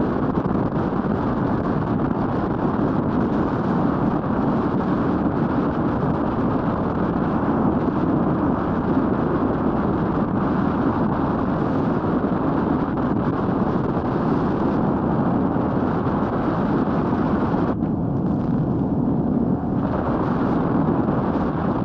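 Steady wind rush on the microphone of a Royal Enfield Meteor 350 motorcycle in motion, mixed with its road and engine noise. The upper hiss thins briefly near the end.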